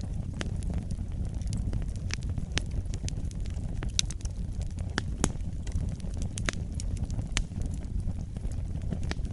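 Wood fire burning in a fireplace: a steady low rumble of flames with irregular sharp crackles and pops from the burning logs. The loudest pops come about four and five seconds in.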